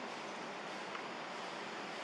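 Steady, even hiss of outdoor background noise, with one faint click about a second in.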